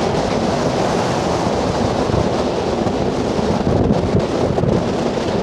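Ocean surf from hurricane swell breaking and washing in as a steady rush, with wind buffeting the microphone.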